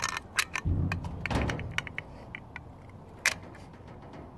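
Manual caulking gun clicking as its trigger is pumped again and again, about ten sharp metallic clicks, loosely spaced and thinning out. The tube of construction adhesive is not dispensing, which the user suspects is because it is too old.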